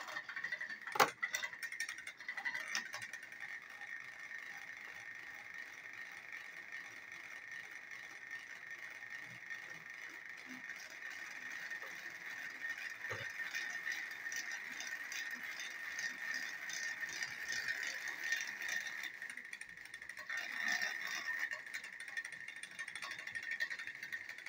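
Battery-powered TrackMaster toy train engines straining against each other, their small electric motors whining steadily with a fast rattle of plastic gears. A sharp click about a second in.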